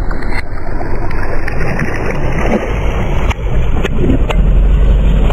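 Car tyre rolling onto hard plastic lunch boxes and crushing them, with several sharp cracks and snaps of breaking plastic over a steady low rumble.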